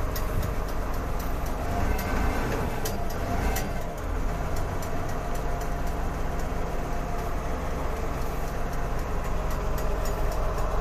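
Diesel engine of an XCMG QY30K-I truck crane idling steadily just after a start, heard from inside the cab, with scattered light clicks.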